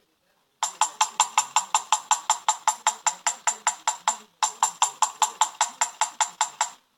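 A fast, even series of sharp tapping clicks, about seven a second, in two runs split by a brief pause about four seconds in.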